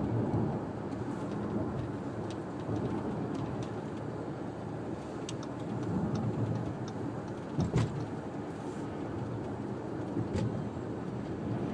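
Steady road and engine noise inside an Audi A6's cabin while it is driven, with a few faint clicks and a brief knock about two-thirds of the way through.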